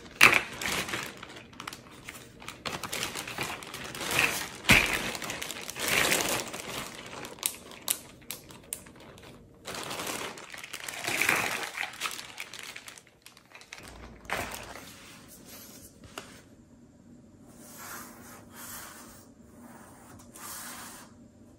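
Plastic bag full of plastic bottle caps crinkling as it is handled, with the caps clicking against each other in irregular bursts. After about 14 seconds it gives way to a few quieter scratchy strokes of a pencil on cardboard.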